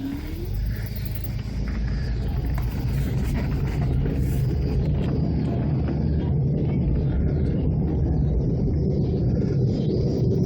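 1999 Chevrolet Malibu pulling away and gathering speed. A low rumble builds over the first couple of seconds, then holds steady: the drone of badly worn wheel bearings.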